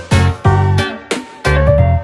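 Background music with a steady beat, a heavy bass line and a melody with sliding notes.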